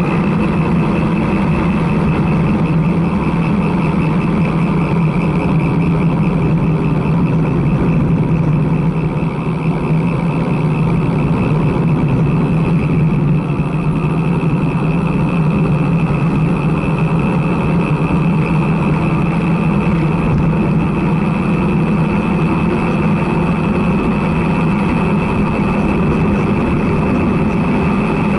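Steady rush of wind over a handlebar-mounted camera's microphone, with the road bike's tyres rolling on asphalt, on a continuous ride.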